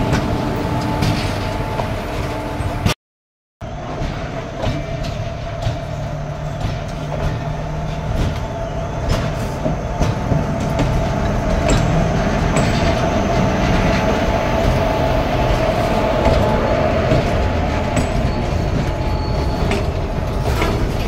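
Indian Railways locomotive running close by: a steady low rumble with a constant whine and a few light clicks and clanks. The sound drops out for about half a second roughly three seconds in, then carries on.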